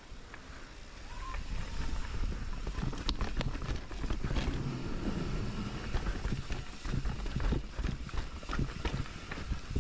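Mountain bike descending a rough trail: low rumble of tyres over dirt and stones with frequent sharp knocks and rattles from the bike, and wind noise, getting louder about a second in.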